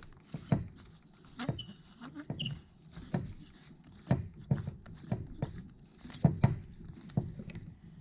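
A 4 mm Allen key turning a bolt out of a plastic neck brace: irregular small clicks, knocks and scrapes of the metal key, bolt and nut against the brace as it is undone.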